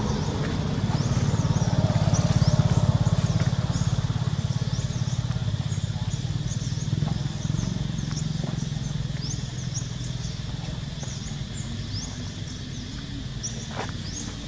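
Outdoor ambience: a low drone that swells over the first few seconds and then eases off, under a steady high insect-like hum and many short, high chirps repeating throughout, with a few faint clicks near the end.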